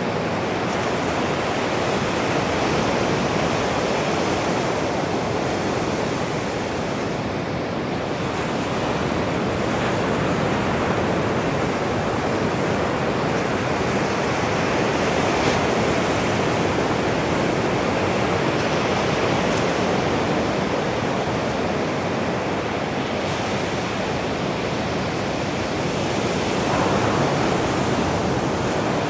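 Ocean surf breaking and washing up a sandy beach: a steady rush of waves that swells and eases slowly.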